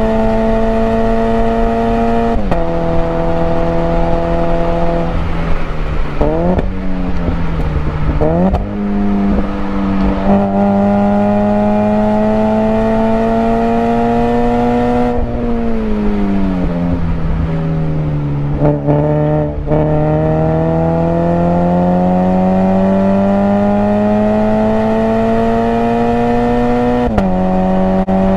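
Toyota GT86's 2.0-litre flat-four engine heard from inside the cabin, worked hard around the track. It is held at high revs and drops sharply in pitch at a gearshift a couple of seconds in. Its pitch wavers up and down several times around six to eight seconds in, then climbs steadily, falls away in the middle, climbs again for a long stretch and drops at another gearshift near the end.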